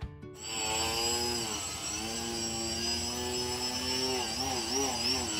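Motor and propeller of a small RC aerobatic plane hovering nose-up, a steady buzzing pitch with a high whine. From about four seconds in, the pitch rises and falls rapidly, about three times a second, as the throttle is worked to hold the hover.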